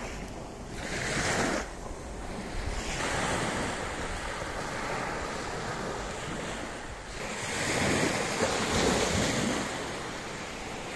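Sea waves breaking and washing up the beach, with wind on the microphone; the surf swells louder about a second in and again for a couple of seconds near eight seconds.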